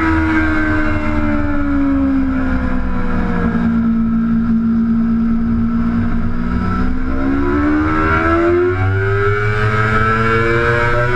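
Sport motorcycle engine heard from on the bike: the revs fall as it slows into a corner, hold low through the corner for a few seconds, then climb steadily as it accelerates hard out of it.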